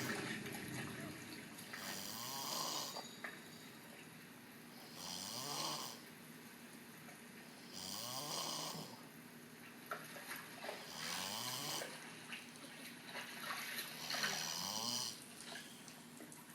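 A man snoring in his sleep, a regular snore about every three seconds, each lasting about a second with a rising low rattle.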